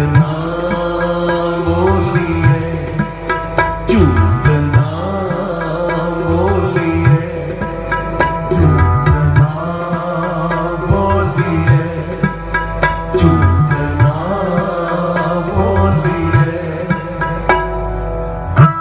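Sikh kirtan music: tabla playing a steady rhythm under the sustained notes of a harmonium, with the low drum's strokes bending in pitch.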